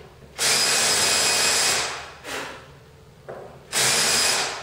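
Cordless drill with a countersink bit chamfering a screw hole in a half-inch MDF base, widening it so the screw head fits. It runs in two short bursts: one of over a second about half a second in, and a shorter one near the end.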